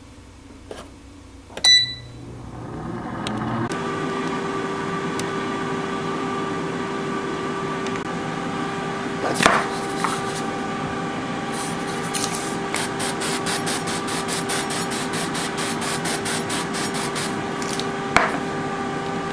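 A digital air fryer set to 400 degrees beeps, then its fan motor spins up with a rising hum and runs steadily. Partway through, cooking-oil spray is squirted onto asparagus in a quick run of short sprays, about four a second.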